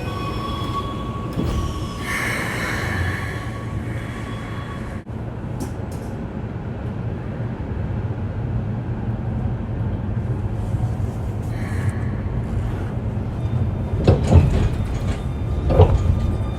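Running sound of a Keikyu New 1000 series electric train, with its Siemens-built traction equipment, picking up speed. A steady rumble grows gradually louder, with electric motor tones early on and a few rail-joint knocks near the end.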